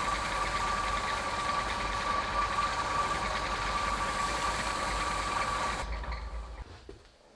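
An electric workshop motor running steadily with a high whine, then switched off and winding down about six seconds in.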